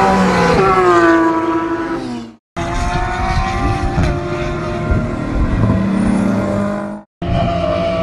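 High-performance sports car engines running at speed past a racetrack edge, their pitch falling as the cars go by and ease off. The sound cuts off sharply twice, about two and a half and seven seconds in, and each time another car's engine picks up.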